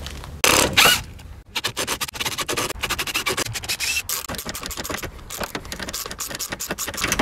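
A cordless drill bit grinding out a broken steel bolt in a car's fender bolt hole, then an M6 x 1.0 tap being turned into the hole to cut new threads. A short noisy burst comes first, then a rapid, irregular run of scraping and clicking of steel on steel.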